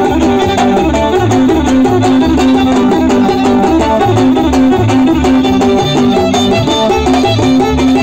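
A live band playing loud, steady music through a PA, led by a fiddle over a regularly pulsing bass line.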